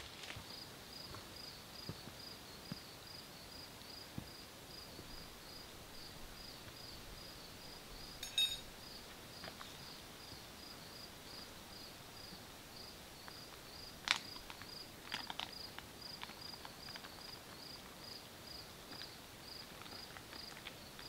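Faint, steady insect chirping, a high pulse repeating about two to three times a second, with a brief sharper chirp about eight seconds in and a few faint clicks later on.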